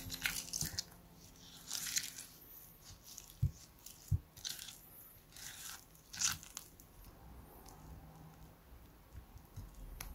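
Silicone spatula mashing and scraping cream cheese and sugar in a glass bowl: irregular soft squishing, slightly gritty scraping strokes every second or two, with two dull knocks of the spatula against the bowl a few seconds in.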